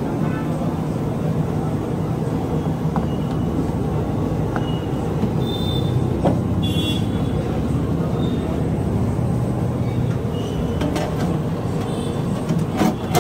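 Steady low rumbling noise, with a few light metal knocks as aluminium trays of khaman batter are slid into a stainless-steel steamer cabinet.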